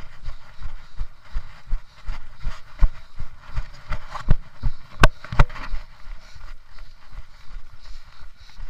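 Running footfalls on a loose gravel trail: an even rhythm of thuds, about two and a half a second, with gravel crunching. Two sharp clicks come about five seconds in.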